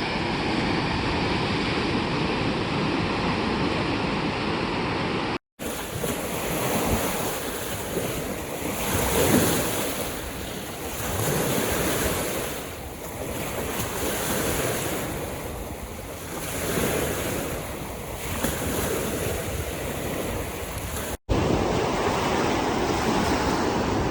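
Ocean surf: waves washing in, swelling and falling every few seconds. The sound drops out for an instant twice, where recordings are joined.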